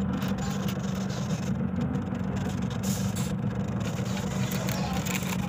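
A steady engine hum, like a motor idling, runs unchanged throughout, with faint crackly rustling over it.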